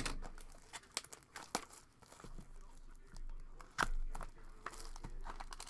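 Trading card box packaging being torn open and crinkled: a string of sharp crackles and clicks, with louder snaps about a second and a half in and near four seconds.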